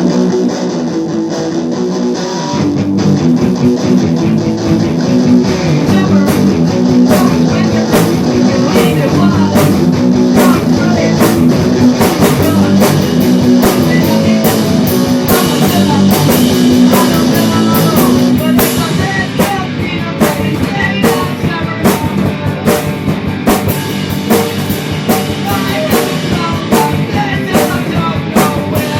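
Rock band demo recording playing: guitar over a drum kit beat.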